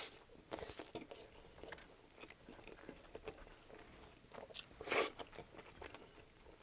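Close-miked chewing of a mouthful of sub sandwich with crusty bread and raw vegetables: wet mouth sounds and small crunches, with two louder crackly sounds, one right at the start and one about five seconds in.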